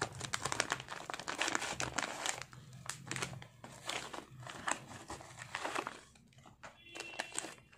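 Crinkling and rustling of a padded paper mailer being cut open with scissors, then of a foil anti-static bag being pulled out of it and handled. The crackling thins out for a moment near the end, then starts again.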